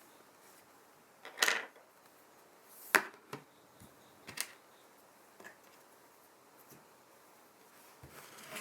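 Small hand tools and phone parts handled on a work surface: a short scrape, then a sharp click and a few lighter clicks and taps, with a light rustle near the end.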